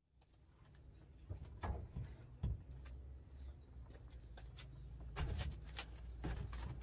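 Fading in from silence: scattered knocks, scrapes and crunches of shoes and knees on the rusted floor pan and debris as a man moves about inside a stripped car body, over a low steady hum.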